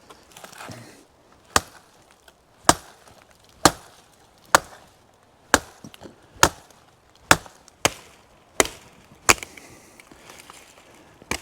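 Large seax-style Odenwolf knife chopping into wood: about ten sharp blows, roughly one a second, with a short pause before the last.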